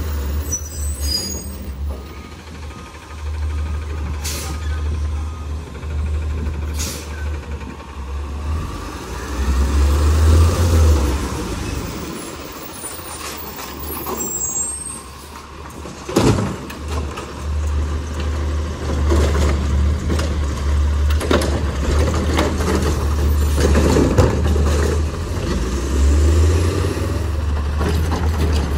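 Autocar ACX garbage truck with a Heil Rapid Rail automated side-loader: the engine runs and rises and falls as the truck drives and stops, with several sharp air-brake hisses. Near the end the hydraulic arm lifts and tips a trash cart into the hopper.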